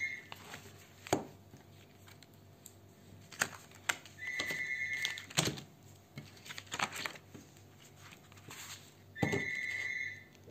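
Spiral-bound comic books being handled on a table: scattered clicks and knocks. Three times, a steady high tone about a second long sounds: near the start, near the middle and near the end.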